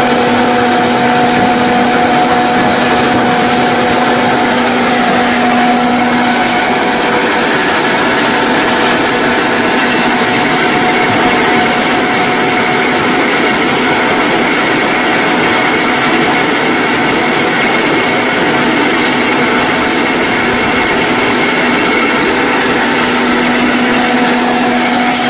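Small wheat flour milling machine running and grinding wheat: a loud, steady whirring and grinding. A steady hum underneath drops away after about six seconds and comes back near the end.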